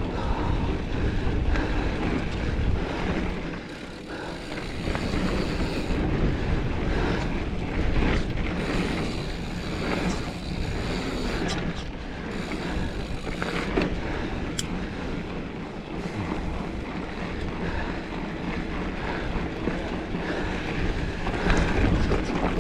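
Mountain bike rolling over a dirt trail: a steady rumble of tyres and frame with scattered clicks and rattles, and wind buffeting the action camera's microphone.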